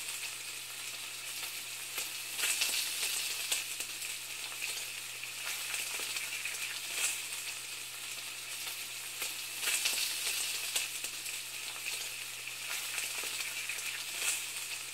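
Steady sizzling hiss with scattered crackles and pops, like food frying in a hot pan.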